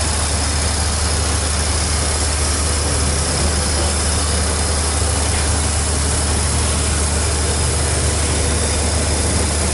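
Steady low engine rumble under an even, constant hiss of water spraying against the outside of a railway passenger carriage during washing, heard from inside the carriage.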